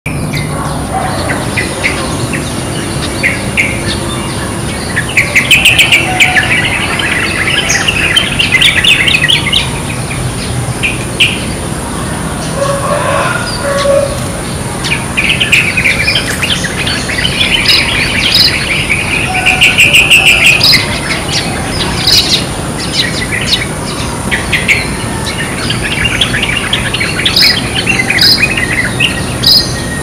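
Yellow-vented bulbul chirping and chattering in quick, bubbly phrases, coming in three long bouts with quieter gaps between them, over a steady high hiss.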